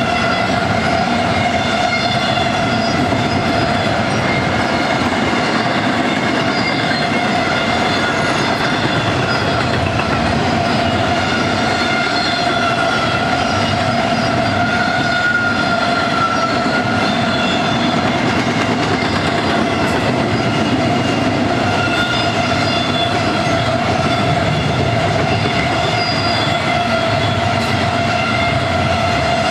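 Double-stack container train rolling past close by, its wheels and well cars running with a steady rumble. Over the rumble is a sustained, slightly wavering high ringing tone.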